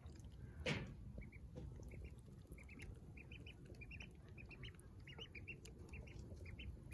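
Young ducklings peeping: many short, high cheeps, often in quick pairs or threes. A brief louder rustle-like noise comes about a second in.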